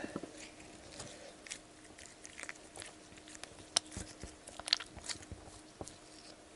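Soft, slightly sticky green slime from a Poopsie Slime Surprise kit being stretched and squeezed between the hands: faint, irregular sticky clicks and small squelches, a few louder ones midway.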